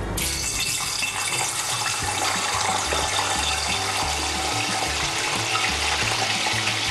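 Wet, skin-on potato pieces dropped into hot oil in a saucepan, starting to sizzle suddenly and then sizzling steadily as they fry.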